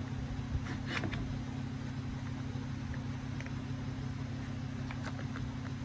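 Steady low hum, with a few faint clicks from an Irwin Quick-Grip clamp being squeezed onto a pipe.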